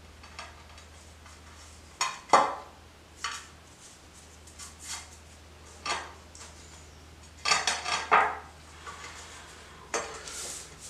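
Irregular sharp clicks and short scraping clacks of ceramic floor tiles and plastic tile spacers being worked by hand. The tile is sitting off its line and won't seat. The loudest click comes about two seconds in, with a busy cluster about three-quarters through.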